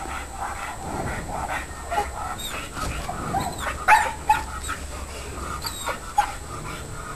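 Dog whining and yipping, a run of short pulsed cries followed by a few sharper yelps about four and six seconds in, excited at a cat that it is held back from on its leash.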